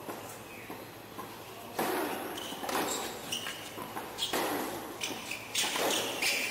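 Tennis rally on a hard court: rackets striking the ball a few times, with players' shoes squeaking and scuffing on the court surface.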